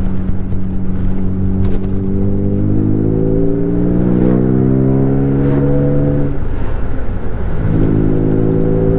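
Alfa Romeo GTV's 3.0 V6 engine heard from inside the moving car. The note climbs steadily as the revs rise, drops sharply about six seconds in, and settles into a steady note again a second or so later.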